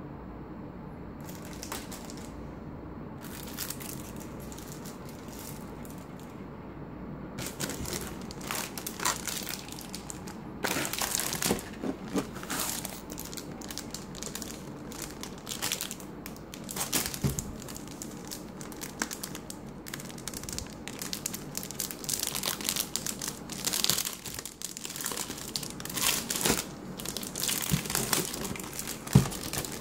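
Clear plastic packaging bags crinkling and crackling as they are handled. The handling is light at first and becomes frequent, irregular bursts from about a quarter of the way in.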